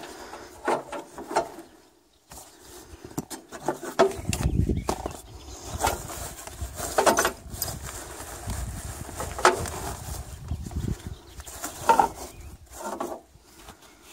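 Irregular knocks, light clinks and rustling as things are handled around a tractor's rear hitch and plough, with a low rumble on the microphone about four seconds in and again from about eight to eleven seconds in.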